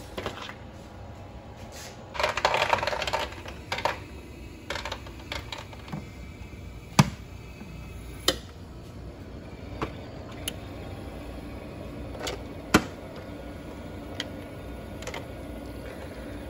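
Frigidaire countertop ice maker running with a steady low hum, while it makes its first batch of ice. A short rustle about two seconds in and a scattering of sharp clicks every second or two, the loudest around seven and thirteen seconds in.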